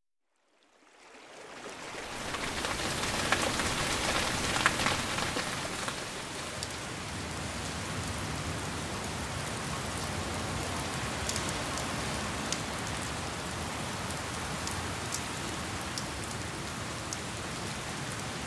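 Heavy rain falling steadily, fading in over the first two seconds, with a few sharper drop taps.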